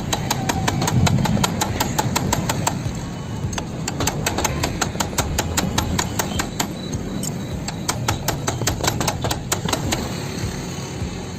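Rapid metal-on-metal hammer blows, several a second and irregular, knocking a bent car lower control arm loose, over a steady low rumble. The blows thin out near the end.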